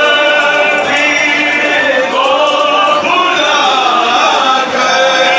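Male voices singing a chanted mourning lament (noha) in long held notes that bend slowly in pitch.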